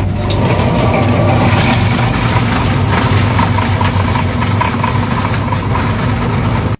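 Motorized ice shaver running steadily, grinding a block of ice into the fine snow for a New Orleans-style snowball: a low motor hum under a dense grinding hiss.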